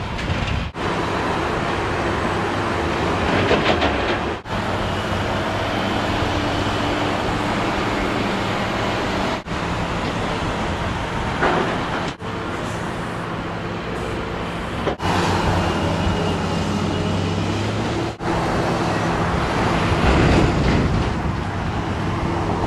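Diesel engine of a Cat tracked excavator running steadily under load as its demolition grapple works through building rubble, with rattling crashes of debris now and then. The sound breaks off abruptly for a moment several times.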